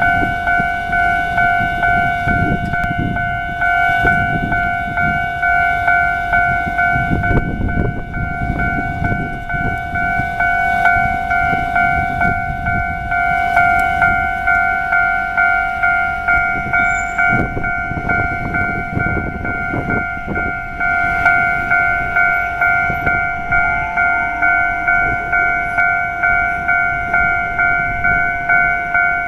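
Japanese level-crossing warning bell ringing continuously in a steady two-tone repeating beat, with the low rumble and wheel clatter of rail vehicles crossing several times.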